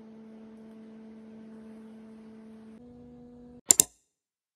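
Soft background music of held, hum-like tones that change pitch about three seconds in. Near the end come two sharp clicks in quick succession, and then the sound cuts off.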